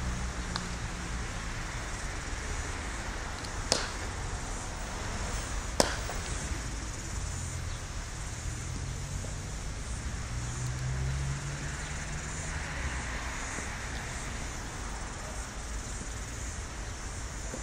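A cricket bat striking a ball twice, two sharp cracks about two seconds apart, over a steady outdoor background hiss and low rumble.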